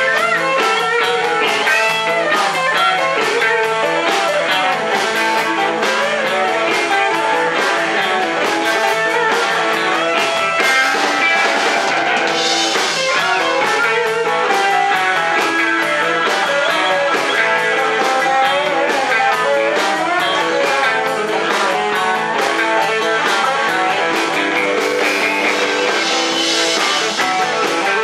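Live blues-rock band playing an instrumental passage: Telecaster-style electric guitars over a drum kit, steady and loud, with no singing.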